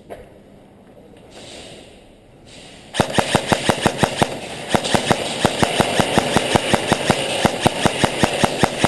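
Airsoft gun firing a long full-auto burst, starting about three seconds in: rapid, even clacks, several a second, over a steady whir.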